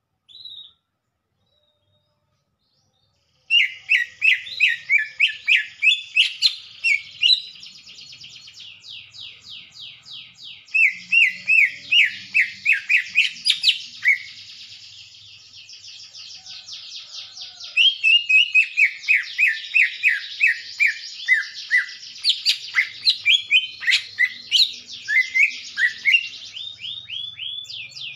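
Greater green leafbird (cucak ijo) singing. One short call comes first, and the song starts about three and a half seconds in: fast runs of repeated down-slurred whistled notes with a high chattering trill above them, loud runs alternating with softer stretches.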